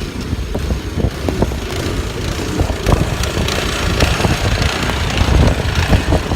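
Uneven low rumble with a hiss: a car driving through a snowstorm.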